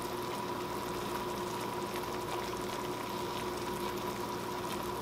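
Thick mushroom cream sauce simmering and bubbling in a pot while it is stirred with a silicone spatula, cooking down to thicken, with faint scattered pops. A steady hum runs underneath.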